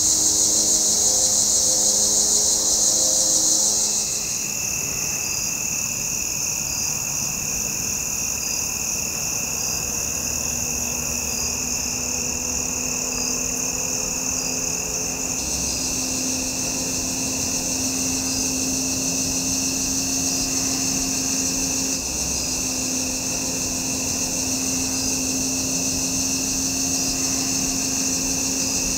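Evening chorus of crickets and other insects: a dense, steady high-pitched trilling that changes character about four seconds in, with a second, lower steady insect tone joining it.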